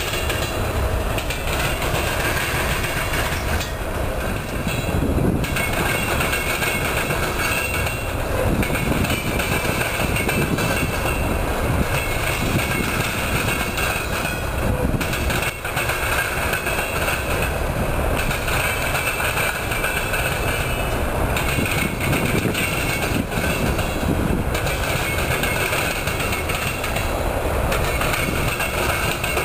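Freight train of coal hopper cars rolling steadily past, the wheels clattering over the junction's crossing diamonds.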